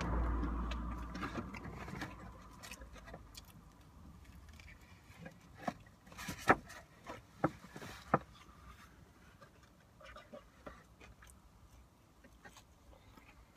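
Takeaway food being handled and eaten inside a car: scattered crinkles and taps of the paper wrapping and cardboard fries box, the sharpest about halfway through, after a low rumble over the first couple of seconds.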